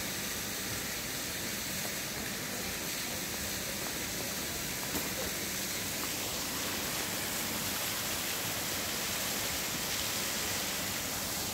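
Steady rushing hiss of falling water from a small waterfall, unchanging throughout.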